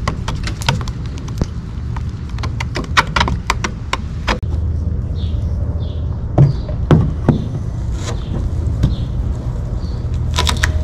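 A wooden stir stick clicks and scrapes rapidly against a plastic bowl as two-part flotation foam is mixed, over a steady low rumble. After a cut about four seconds in, a few dull knocks follow as the stick works the expanding foam.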